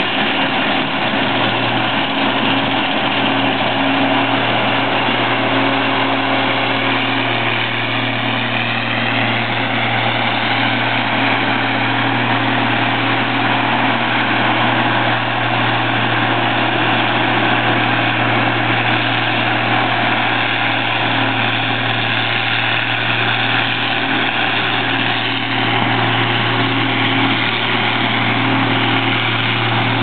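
Gleaner R52 combine harvesting soybeans: its engine and threshing machinery run steadily, a constant low hum over dense mechanical noise.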